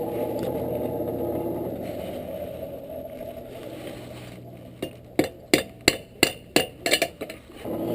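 A steady low rush from the forge fire fades, then a hammer comes down on the hot iron on the anvil about eight times in quick succession, roughly three blows a second: tacking a forge weld.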